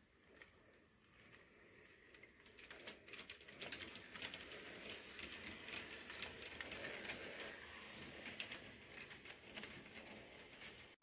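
Faint, irregular clicking and light rattling of an HO scale model train rolling over the track, starting about two and a half seconds in after near silence.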